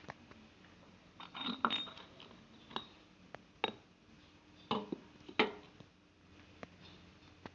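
Irregular metallic clinks and knocks, about six in all, the loudest a little past the middle, as hard parts and tools are handled.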